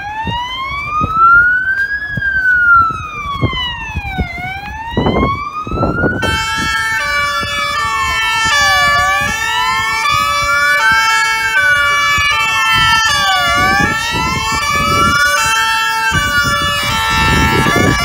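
Emergency vehicle sirens on the approaching fire-brigade convoy, wailing slowly up and down about every four seconds. From about six seconds in they are joined by a second sound of held tones that change pitch in steps. A burst of hiss comes near the end.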